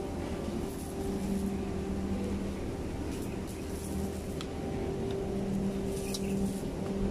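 Steady mechanical hum: a low drone carrying two steady tones that swell and ease a little, with a few faint clicks.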